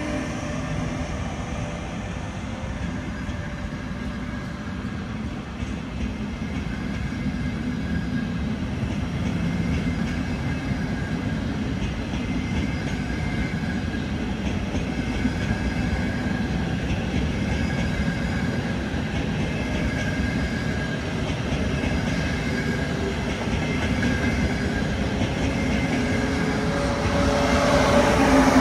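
A train running on the rails at the station: a steady rumble of wheels on track with clickety-clack, growing louder near the end.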